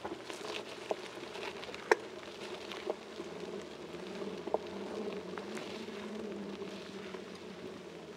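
Mounted action camera's own movement noise: a steady muffled hum with light clicks about once a second as it moves slowly over a gravel track.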